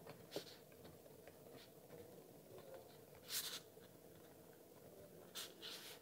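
Faint scratching of the Big Idea Design Ti Arto titanium pen's gel refill writing on notebook paper, in two short strokes about three and a half and five and a half seconds in, with a light tap near the start.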